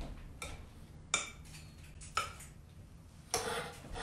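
A large spoon clinking against a glass bowl while stirring fruit salad, four sharp clinks about a second apart.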